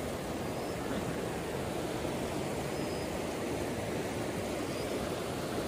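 Steady rushing of a mountain stream, an even wash of water noise with no change.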